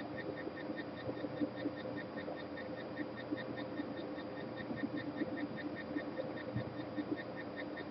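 A steady low hum with a fast, even, faint ticking of about five ticks a second running over it.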